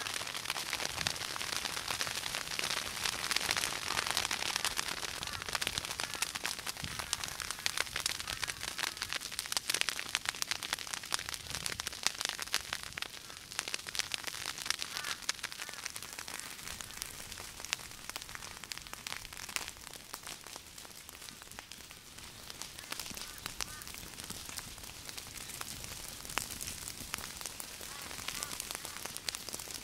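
Savannah bushfire crackling and popping, a dense run of sharp snaps over a hiss, busier and louder over the first half and thinning later.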